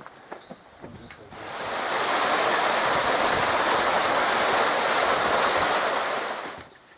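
Rushing water of a creek pouring over a waterfall: a loud, even rush that fades in about a second in, holds steady, and fades out shortly before the end.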